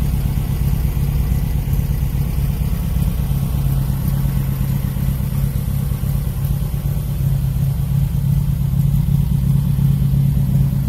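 Meyers Manx dune buggy's engine idling steadily at a low, even pitch.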